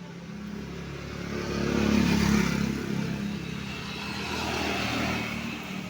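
A motorcycle passing by: its engine sound swells to a peak about two seconds in and fades, with a second, weaker swell near the end.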